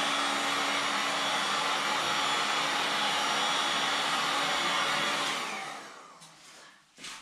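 Handheld electric heat gun blowing steadily while it softens a plastic wheel-rim protector ring. It is switched off about five seconds in, and its fan winds down with a falling whine; a light knock follows near the end.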